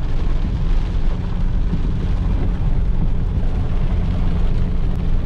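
A vehicle driving in heavy rain: a steady low engine rumble under an even hiss of rain and wet road.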